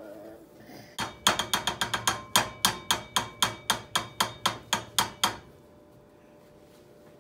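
A metal spoon tapped quickly and repeatedly against the rim of a nonstick frying pan, about four sharp, ringing clicks a second for some four seconds, knocking pancake batter off the spoon.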